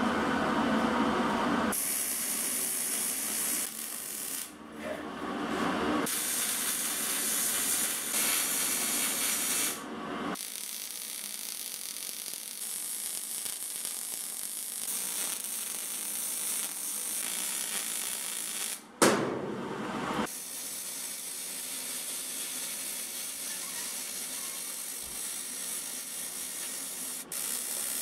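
MIG/MAG welding arc running on thin sheet-steel hull seams, starting about two seconds in and going in several long runs with short breaks between them.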